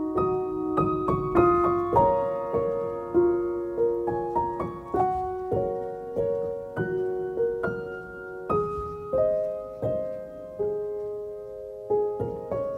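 Background piano music: a melody of single struck notes over held lower notes, at an even pace of roughly one note every half second or so.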